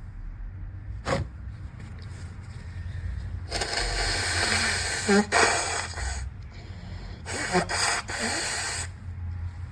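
A person blowing a snotty nose hard: one long wet blow of a couple of seconds in the middle, then three shorter blows near the end. A brief sharp nasal burst comes about a second in.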